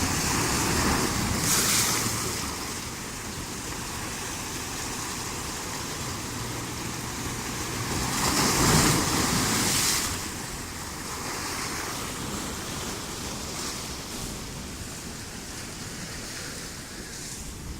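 Sea waves washing in, with two larger surges that swell and fade, one about a second in and a bigger one around nine seconds in.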